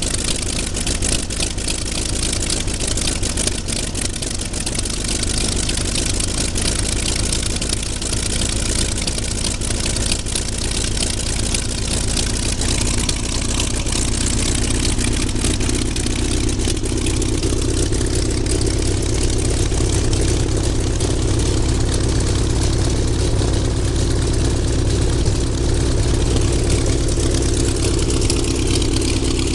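Large radial piston aircraft engine idling steadily with its propeller turning. It picks up slightly in speed and loudness about halfway through.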